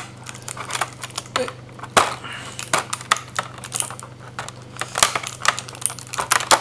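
Irregular plastic clicks and crackles from a plastic blister tray being handled while the figure's spare hands are pried out of it, with the sharpest clicks about two seconds and five seconds in.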